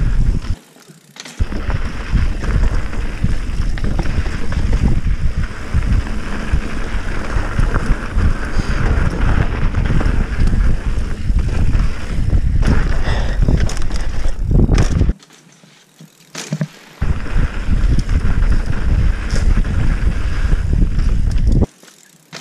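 Mountain bike ridden fast down a rough dirt trail: wind buffeting the microphone over the rumble and rattle of tyres and suspension on roots and rocks. The sound drops away briefly about a second in and again for a couple of seconds past the middle.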